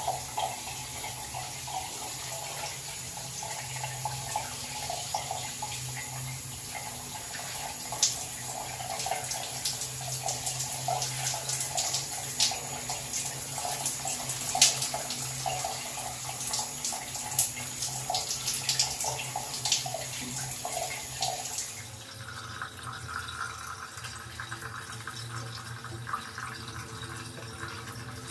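Shower running, water spraying and splashing onto a tiled floor, with a few sharp clicks along the way. About two-thirds of the way through the sound turns to a softer, steadier spray.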